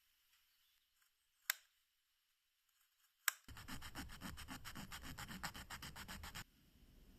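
Two sharp clicks, then sandpaper rubbed rapidly back and forth on a small part, about eight strokes a second for about three seconds, stopping abruptly.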